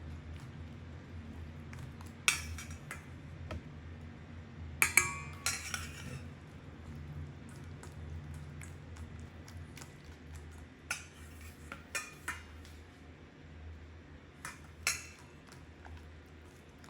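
Scattered sharp clinks and knocks of a utensil against a mixing bowl while starch is worked into marinating chicken. The loudest come about two and five seconds in, with a few more later. A low steady hum runs underneath.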